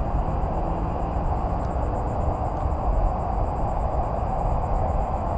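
Steady outdoor background: a low rumble of wind on the microphone, with a high, rapidly pulsing insect trill throughout.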